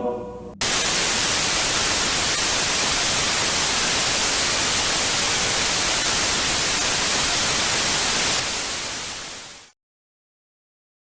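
A broadcast signal dropping off the air: loud, even TV static hiss cuts in suddenly as the last music stops, runs steadily, then fades out over about a second into dead silence.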